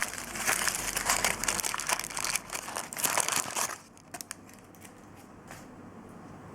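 Plastic packaging crinkling and rustling as it is handled, with a dense crackle for about four seconds that then drops away to a few light clicks.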